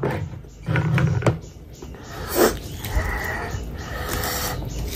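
Close-miked mouth sounds of eating: chewing and lip smacking, then fingers squishing and mixing rice with pickle oil on a plate.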